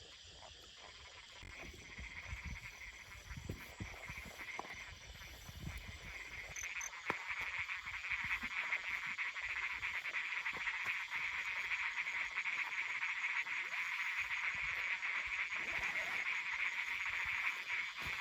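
A chorus of frogs calling at night, a dense rapid trilling that swells in and grows markedly louder about seven seconds in.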